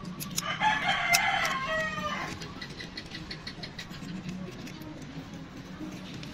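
A rooster crows once. The crow starts about half a second in and lasts about two seconds.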